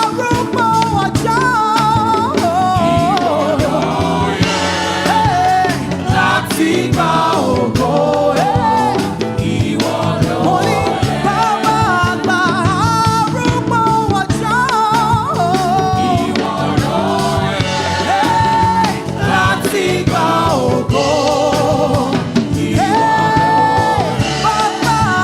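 Live gospel praise-and-worship music: a lead singer with backing voices over a full church band with drums, playing continuously.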